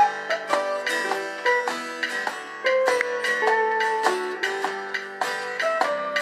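Acoustic guitar strumming chords while a small plucked string instrument picks out a moving melody over them, with many quick notes and held tones.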